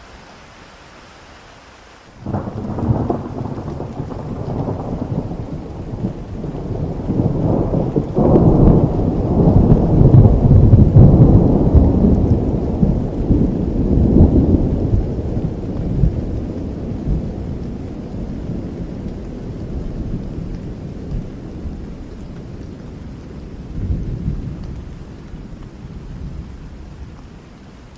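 A long roll of thunder over steady rain: the rumble breaks in suddenly about two seconds in, swells to its loudest about ten seconds in, then slowly dies away, with a smaller second rumble near the end.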